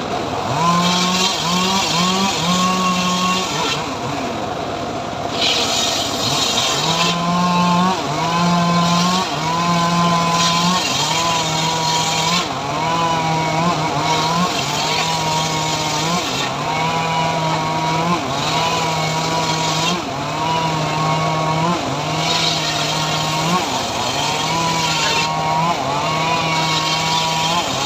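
Chainsaw engine of a homemade srekel sawmill running hard while cutting sengon wood. Its pitch dips in a regular pattern about every second and a half, and a hiss of the chain in the wood comes and goes.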